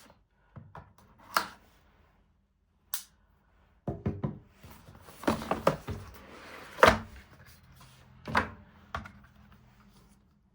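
Packaging being opened and handled: a string of separate knocks and thunks, with soft rustling in the middle, as the box of a Leatherman Arc multitool is unpacked.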